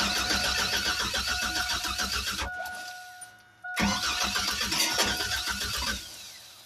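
Chevrolet Astro van engine cranking on the starter without catching, in two tries of about three and two seconds with a short pause between; a steady high tone sounds through the pause. It cranks but won't fire, even though the coil gives spark and the fuel pump gives 65 psi.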